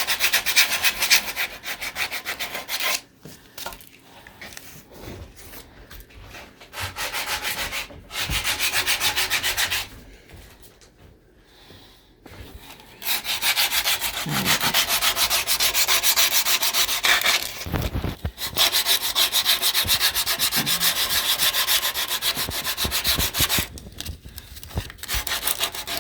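Sandpaper rubbed by hand over wood in quick back-and-forth strokes, stopping for a few short pauses.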